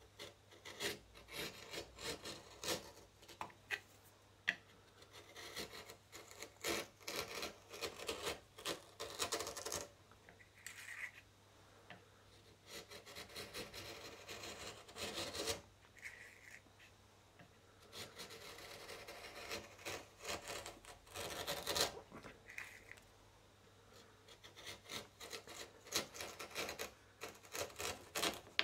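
An 18th-century-pattern hand chisel paring shavings from the edge of a hardwood block, pushed by hand in runs of short scraping strokes with brief pauses between runs. A faint steady low hum lies underneath.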